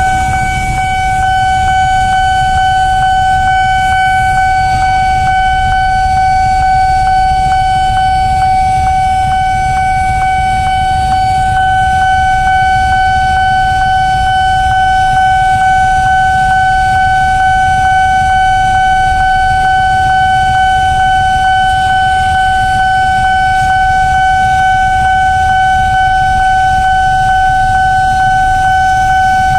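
Railway level-crossing warning alarm sounding one steady, unbroken tone over the low rumble of a freight train passing through the crossing.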